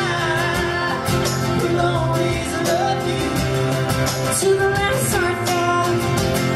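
Live band music: a woman singing over strummed acoustic guitars and an electric guitar.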